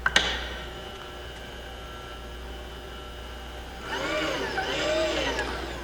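Table power feed on a Wells-Index 847 vertical mill running after a click as it is switched on, with a steady motor hum. About four seconds in, a louder whine swings up and down in pitch for a second or so.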